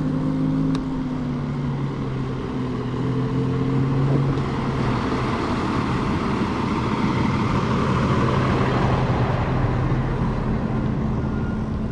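A large flatbed truck drives past close by; its engine and tyre noise swells over several seconds and eases near the end. Underneath is a low steady hum and wind noise from a slowly rolling electric moped.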